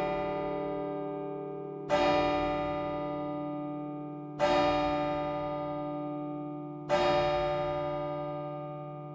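A 1957 Michiels church bell struck by the clock hammer: three slow, even strokes about two and a half seconds apart, each with a sharp attack and a long fading ring. These are strokes of the four o'clock hour strike.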